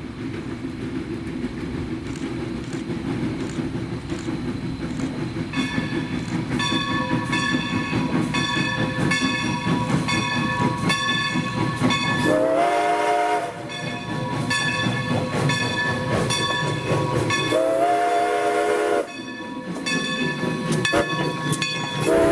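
Baldwin 2-8-0 steam locomotive No. 40 approaching and passing, its exhaust and running gear rumbling and growing louder. Its bell rings steadily from about five seconds in, and two blasts of its steam whistle, each over a second long, sound about halfway and past two-thirds of the way through, with a third starting at the very end.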